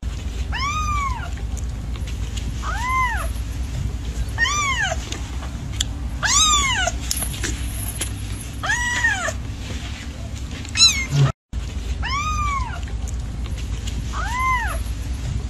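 Kitten meowing again and again: about eight short, high meows a couple of seconds apart, each rising and then falling in pitch.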